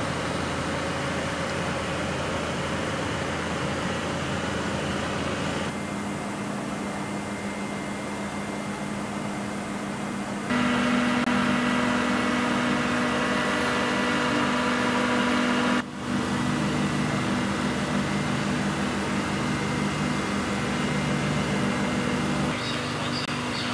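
Steady hum of shipboard machinery and ventilation in an aircraft carrier's hangar bay, with several held tones. It changes abruptly in level and pitch a few times.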